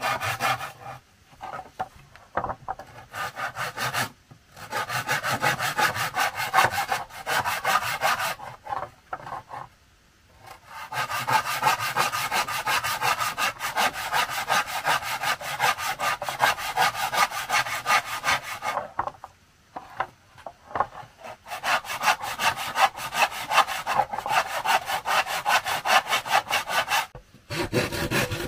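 Hand saw cutting wood with quick, even back-and-forth strokes, in several bouts separated by short pauses; the longest bout runs about eight seconds in the middle.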